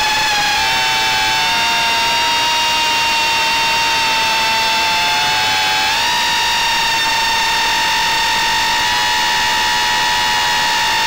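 High-pitched whine of a 130 mm FPV quadcopter's four DYS 1306 4000KV brushless motors spinning 3-inch Gemfan Flash props on a 4S battery, heard through the onboard camera. About a second in, one strand of the whine slides lower, then jumps back up to the rest about six seconds in.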